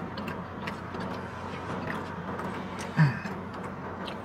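Steady background hiss with scattered faint clicks of handling; about three seconds in, a brief low vocal sound from the man, falling in pitch.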